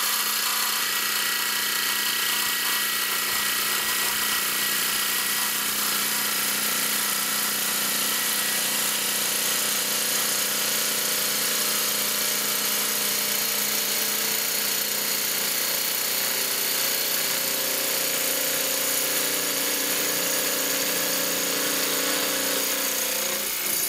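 Makita 40V XGT JV001G barrel-grip brushless jigsaw running steadily as its blade cuts through a board, and cutting off near the end.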